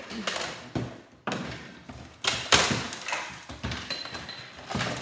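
Plastic casing of a portable CD and cassette player being pulled apart by hand: a series of sharp cracks and knocks as pieces come loose and are handled, the loudest about halfway through.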